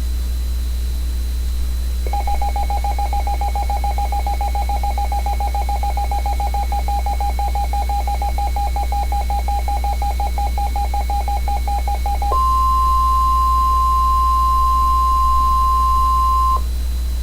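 Alert tones from a NOAA Weather Radio broadcast: a rapidly pulsing electronic beep for about ten seconds, then the steady, slightly higher warning alarm tone for about four seconds before it cuts off, over a constant low hum.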